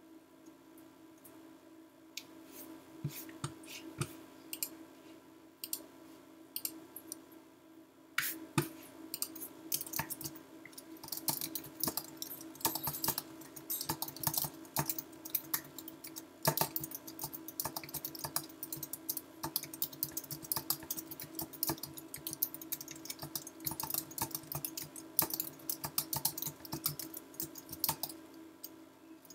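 Typing on a computer keyboard. A few scattered clicks come first, then fast, continuous typing from about eight seconds in that stops shortly before the end.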